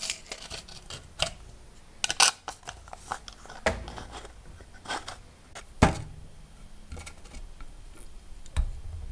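Irregular clicks, clinks and knocks from a hand rivet nut (rivnut) tool and its metal parts being handled, with one sharper knock about six seconds in.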